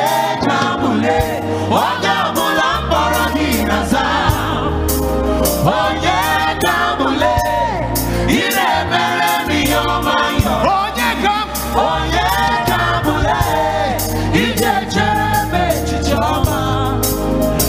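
Live gospel worship music: a lead singer and a group of backing singers sing over a band with a steady bass line and a regular cymbal beat.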